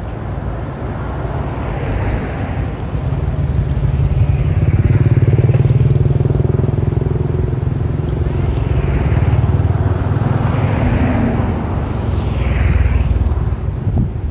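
Road traffic: the low, steady engine drone of passing vehicles, swelling about four seconds in and again shortly before the end.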